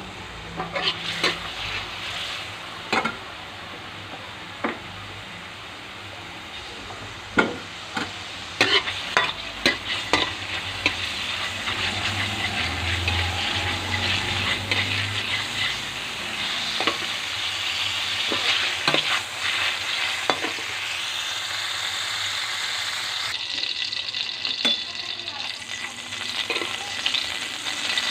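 Garlic longganisa sausage sizzling as it fries in oil in a metal pan, the sizzle growing louder after the first several seconds. A slotted metal spatula clicks and scrapes against the pan as the sausage is pushed and turned, most often in the first half.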